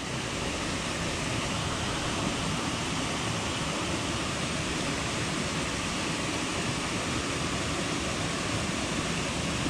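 Steady, even rush of water from a small waterfall spilling into a brook.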